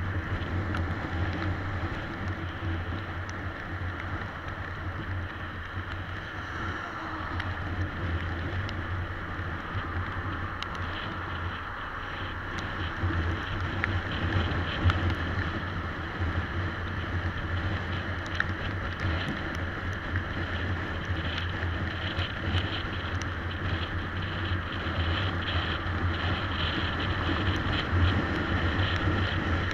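Honda CBR250 motorcycle ridden along a road: a steady low engine drone under wind rushing over the microphone.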